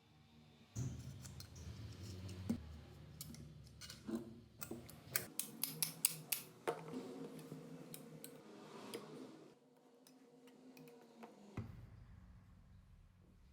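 A hand tool clicking and snipping: a quick run of sharp clicks, thickest in the middle, over a faint steady hum.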